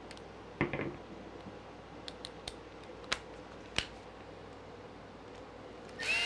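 A few light clicks and a short clatter of small tools being handled, then near the end a cordless electric screwdriver spins up with a whine that glides briefly upward and settles to a steady pitch, driving out a chassis screw on a 1/10 RC car.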